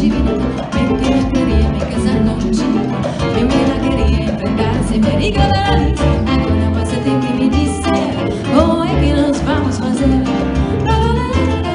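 Live Latin-jazz band playing: acoustic guitar, double bass, piano and congas, with voices singing wavering lines at times over the accompaniment.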